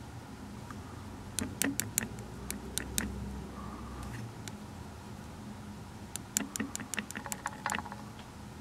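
Quick runs of light clicks from the zoom controls of a Rand McNally Foris 850 handheld GPS being pressed repeatedly to zoom the map in. About six clicks come between one and a half and three seconds in, and a faster run of about ten between six and eight seconds, over a low steady hum.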